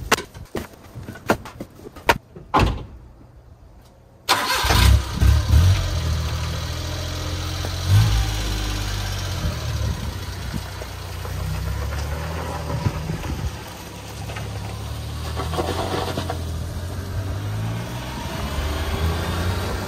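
A few knocks, then the Suzuki Carry 4x4 mini truck's engine starts about four seconds in and runs, its pitch shifting up and down as it pulls away and drives.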